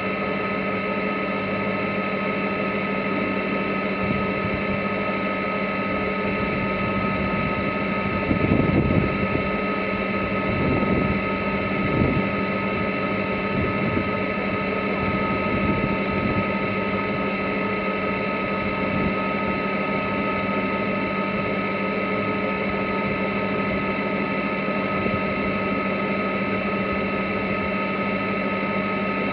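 J/111 sailboat's inboard engine running at a steady speed under way, a constant drone with a strong hum. A few brief low rumbles come through a little before the middle.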